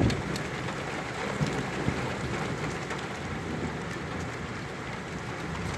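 Steady rain falling, with a low rumble underneath and a thump right at the start.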